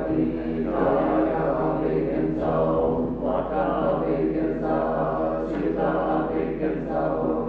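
Tibetan Buddhist monks chanting a liturgy together, a group of low male voices holding a steady, droning recitation.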